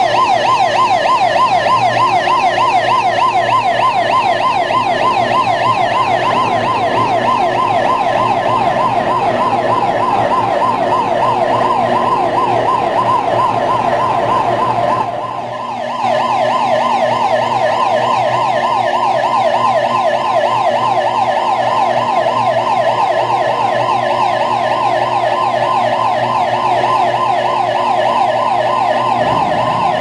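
Electronic warning alarm sounding a fast, continuous warble of repeated pitch sweeps, several a second, over a steady low machine hum. It dips briefly about halfway through and then carries on.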